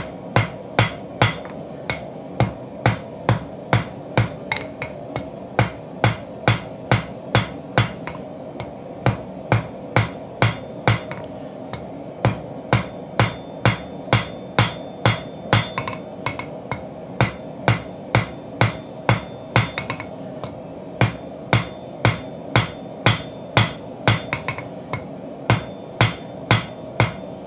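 Hand hammer striking hot Damascus steel on an anvil to draw out a knife tang: steady blows about two a second, with a few short pauses, over a steady background hum.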